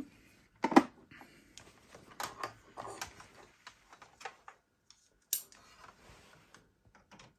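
Plastic clicks and knocks of a USB cable being plugged into a Vorwerk Thermomix and handled: one sharp click about a second in, then a scatter of lighter, irregular clicks and another sharp click a little past halfway.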